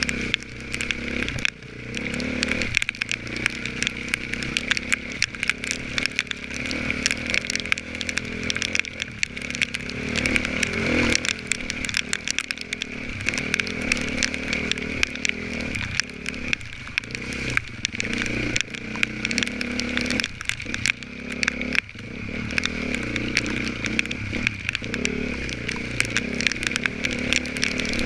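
Off-road motorcycle engine revving hard and falling back as the rider works the throttle, with short cuts in power a few times, amid clattering and knocking from the rough, muddy ground.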